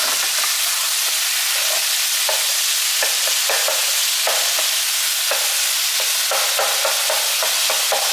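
Chicken strips, zucchini and yellow bell pepper sizzling in a nonstick frying pan with a steady hiss, as a spatula stirs through them, with short scrapes and taps of the spatula against the pan at irregular intervals.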